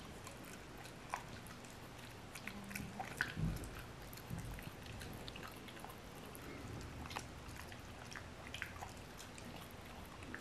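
Beagle chewing and mouthing a snack, with faint irregular clicks and smacks of its jaws and lips as it works to spit out the skin.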